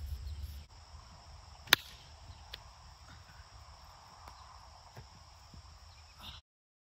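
Open-field ambience with a steady faint high chirring of insects, and wind rumbling on the microphone for the first half second. About two seconds in comes a single sharp crack, the loudest sound. The audio cuts off abruptly near the end.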